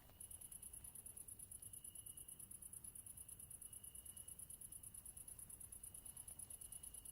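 Crickets chirping: a faint, high-pitched, rapidly pulsing trill that goes on almost without a break, with a fainter, lower steady tone that swells and fades beneath it.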